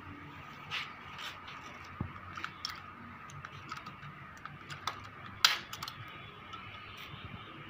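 Pliers working the welded wire mesh of a cage panel: irregular sharp metal clicks and snips, the loudest about five and a half seconds in.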